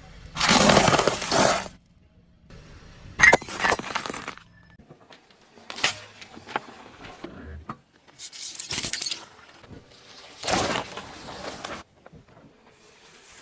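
A series of crunching, breaking sounds, about five separate bursts a couple of seconds apart: brittle objects being crushed under a car's tyres.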